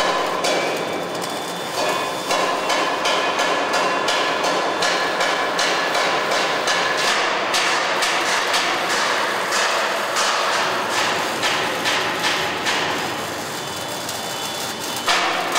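Welding on a steel bus body frame: a dense sizzling crackle, with a run of sharp knocks at about two a second through the middle.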